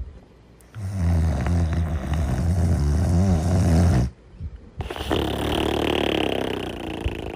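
Deep snoring in sleep: one long, low, rattling snore lasting about three seconds, a brief pause, then a breathy, hissing breath.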